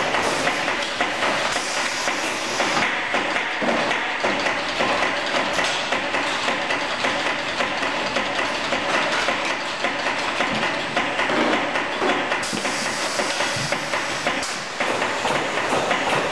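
Inline box-filling machine and its conveyor running: a steady mechanical clatter with a hiss over it. The hiss thins out about three seconds in and returns near the end.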